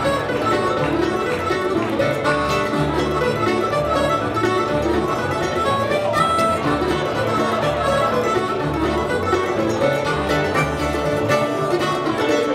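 Live acoustic band playing a bluegrass-style number, with upright bass and acoustic guitar under a lead melody line, the bass notes pulsing steadily.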